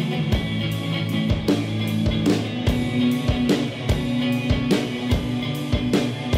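Live rock band playing an instrumental passage: an offset-body electric guitar strummed through a Marshall valve amp, holding sustained chords, with drums keeping a steady beat of about two hits a second.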